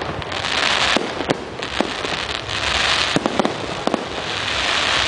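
Fireworks display going off: sharp bangs of bursting shells, a quick cluster of them just past the middle, over a dense crackling hiss that swells and fades.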